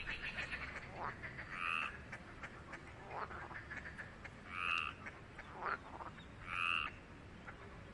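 Frogs calling: three short, buzzy croaks about two seconds apart, with quick downward-sliding chirps between them.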